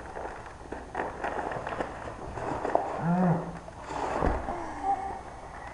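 Crinkling of bubblegum pouches as shredded gum is crammed into mouths, with a few short muffled vocal sounds from full mouths about halfway through and near the end.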